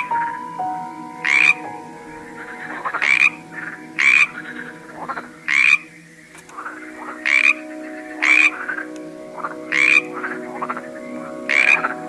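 Frogs croaking in a repeated series of short calls, about one every second or so.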